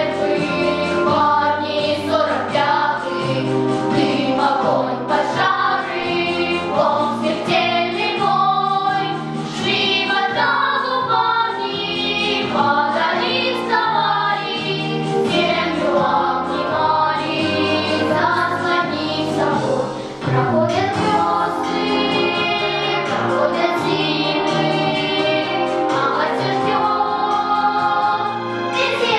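A children's choir of seven girls singing a song together, with low sustained accompaniment notes underneath.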